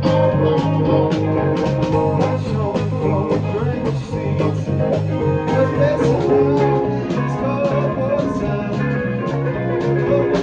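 A band playing a rock song live at rehearsal: electric bass notes played with the fingers, with drums keeping a steady beat and guitar.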